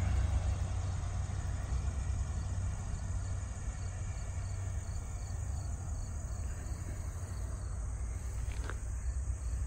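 Insects chirping faintly in an even rhythm, a few chirps a second, over a steady low rumble.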